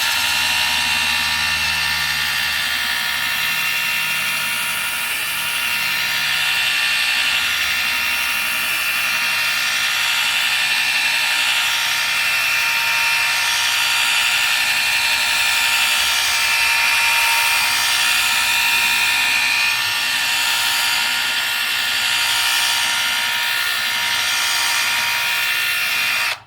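Milwaukee right-angle drill running steadily with a high whine while it wet-polishes a mark in a car's glass, then cutting off suddenly at the end.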